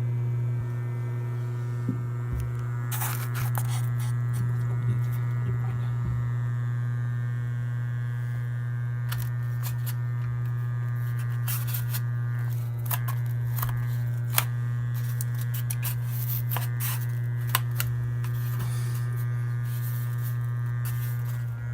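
A loud steady low hum with a ladder of overtones: the drone that wind sets up behind a balcony stretch ceiling, put down to gaps and joints between the balcony frame and the concrete floor slabs. Scattered sharp clicks and taps sound over it.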